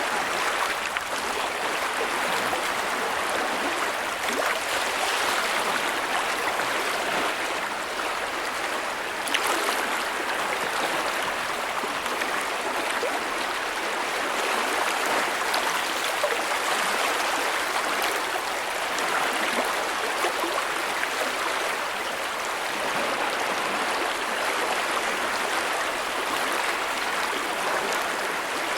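A big creek running, water rushing and splashing over rocks, heard as a steady full rush with small splashes throughout.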